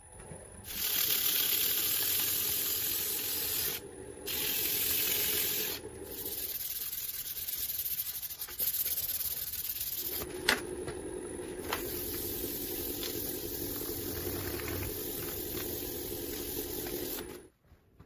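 Hands rubbing and handling the surface of a glued-up wooden bowl blank on a stopped lathe. Long spells of hissing, rustling rubbing are broken by short pauses, with two sharp clicks about ten seconds in.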